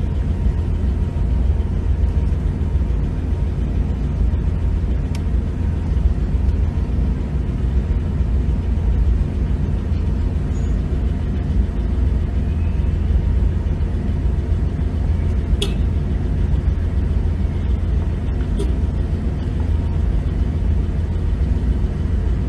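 A car engine idling steadily, a low rumble heard from inside the vehicle's cabin, with a few faint ticks.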